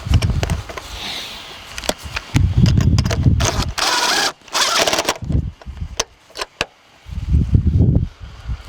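Hands refitting plastic interior trim and clips in a car's rear seat area: a busy run of clicks and knocks, with low thuds three times and a scraping rustle in the middle.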